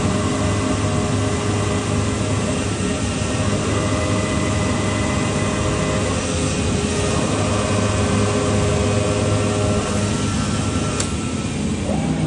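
CNC V-grooving machine running and cutting, a steady mechanical noise with a constant whine of several held tones.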